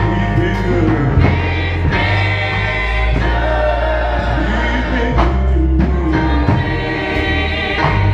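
Gospel music: a man sings into a microphone over keyboard accompaniment, with long sustained bass notes underneath.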